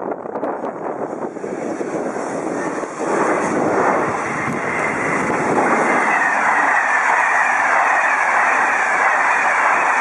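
A passenger train passing at speed with a steady rush of wheels on rails. In the first seconds a regional electric multiple unit runs by. From about three seconds in it grows louder and stays so as an Intercités train hauled by BB 22265, a BB 22200-class electric locomotive, passes with its coaches.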